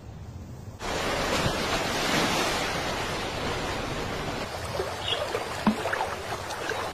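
Rushing white water of a fast, churning river, a loud steady roar that starts suddenly about a second in, with a few faint knocks in it.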